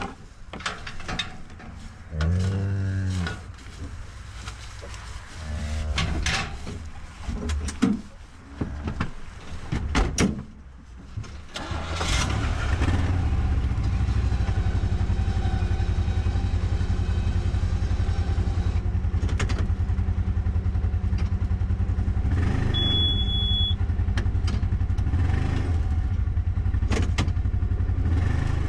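A cow mooing once and a few sharp knocks. About twelve seconds in, a utility vehicle's engine starts and then runs steadily as the vehicle drives off.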